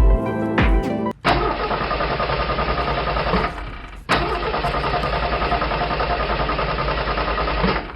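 An engine running with a rapid, even pulsing, in two stretches with a short break between them. It follows a second of background music.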